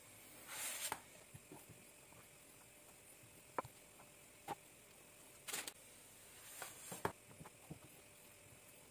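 Quiet kitchen handling: a pancake slid from a frying pan onto a plate with a brief soft swish near the start, then a spoon spreading curd cheese on it, giving a few short scrapes and light clicks against the plate.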